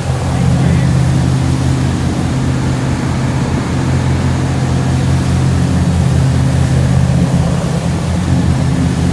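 Boat's engine running steadily on board, a low, even drone.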